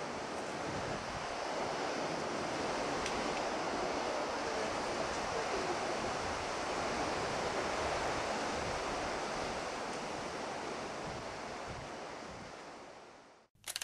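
Steady outdoor rushing of wind and surf, with an uneven low rumble of wind buffeting the microphone. It fades out near the end and is followed by a short sharp burst.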